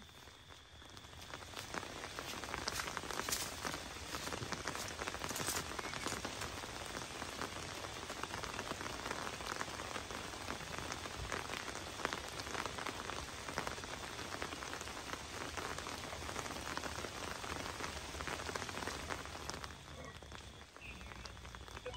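Rain pattering steadily on the tent fabric, a dense spread of tiny drop ticks. It picks up about a second in and eases slightly near the end.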